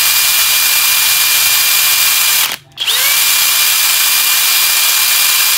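FLEX 24V brushless hammer drill running free with no load in turbo mode, a steady high whine at full speed. The trigger is let go briefly about two and a half seconds in, then pulled again, and the motor spins back up with a quick rising whine.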